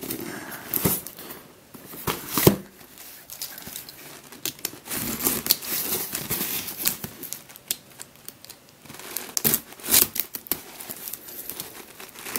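Clear plastic wrap crinkling and tearing as it is pulled off a cardboard box, with irregular crackles and a few sharp knocks from the box being handled; the loudest knock comes about two and a half seconds in.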